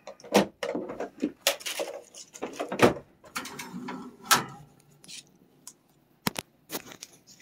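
Handling noises at a wire pet cage: a string of sharp knocks and clicks with rustling between, thinning to a few isolated clicks after about five seconds.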